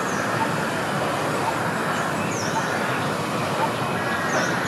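Steady hum of city traffic, with a bird chirping briefly three times.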